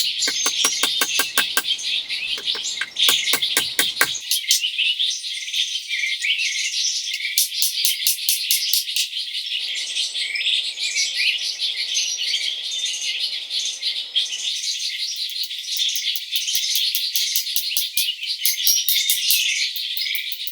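Birds chirping and calling in a dense chorus, over runs of rapid high-pitched pulsing trills.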